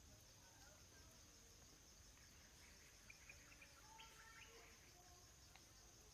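Near silence: faint forest ambience, a steady high insect drone with a few faint bird chirps about halfway through.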